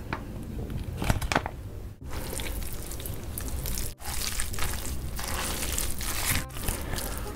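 Close-miked eating-show sounds: a squeeze bottle squirting thick chili sauce over noodles with a few sharp clicks and spurts in the first two seconds, then the wet, sticky squelching of sauce-coated noodles being lifted and mixed with chopsticks.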